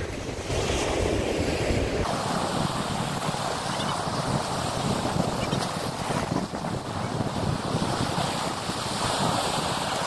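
Black Sea waves washing and splashing against a concrete pier, a steady surf noise. Wind buffets the microphone, heaviest in the first two seconds.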